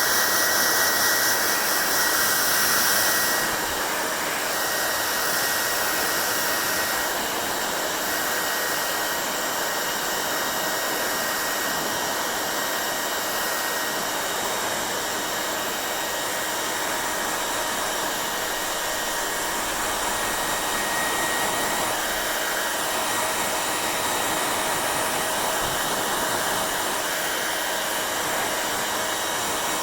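Hair dryer blowing steadily: an even rush of air with a thin whine over it. About three seconds in, the sound drops a little and loses some of its hiss, then runs on evenly.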